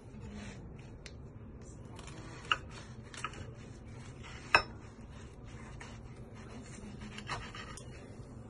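A knife sawing through a crisp pan-fried wrap on a ceramic plate: faint scraping, with a few sharp clicks of the blade against the plate, the loudest about halfway through.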